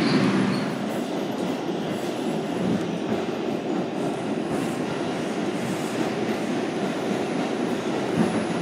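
Steady running noise heard inside an R142 New York City subway car moving through the tunnel: the wheels on the rails and the car's running gear make an even rumble.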